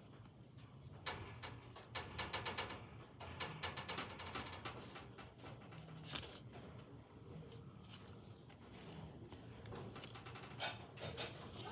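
Paper rustling and crinkling in short bursts as hands handle and open a homemade paper box.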